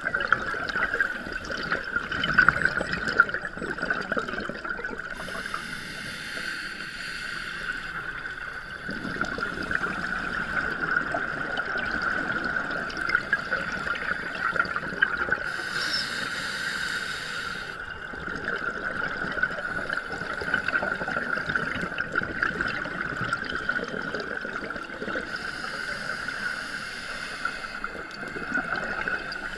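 Underwater sound of scuba diving: gurgling and crackling of regulator bubbles, with a hiss of exhaled bubbles about every ten seconds. A steady high-pitched hum runs underneath.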